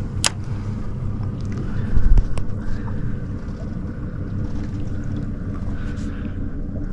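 Steady low rumble of the boat's engine idling, with some wind on the microphone. A sharp click comes near the start and a low knock about two seconds in.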